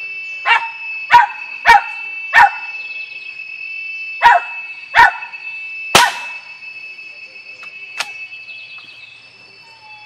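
A dog barking about seven times in two short runs, sharp single barks, with one fainter bark about eight seconds in. A steady high insect buzz runs behind.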